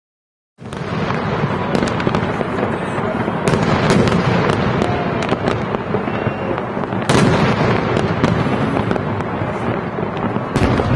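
A fireworks display going off: a dense, continuous crackle with many sharp bangs from shells bursting, the loudest about seven seconds in and near the end. The sound cuts in abruptly about half a second in.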